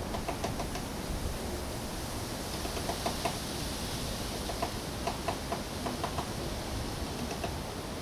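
Woodpecker pecking into the wooden siding of a house: sharp taps in short irregular clusters of a few pecks each, not a drumming roll, as it chips a hole in the board. A steady hiss lies under the taps.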